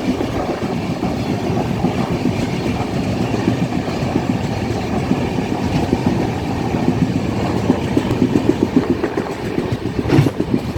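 Passenger train running, heard from its open door: a steady rumble of steel wheels on rails, with a rhythmic clatter that grows stronger in the second half as another train on the next track comes closer. A sharper knock stands out shortly before the end.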